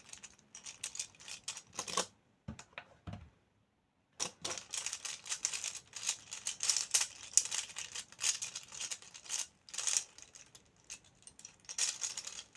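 A 3x3 puzzle cube being turned rapidly in a speedsolve, a dense run of plastic clicking and clacking from the layers. There is a pause of about two seconds shortly after the start.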